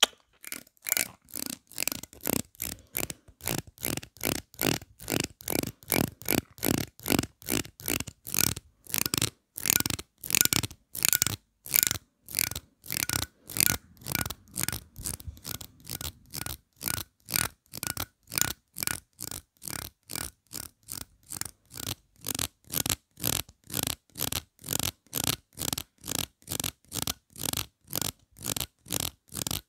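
Teeth of a plastic comb scraped close up against a lavalier microphone, a steady rhythm of short rasps, a little over two a second.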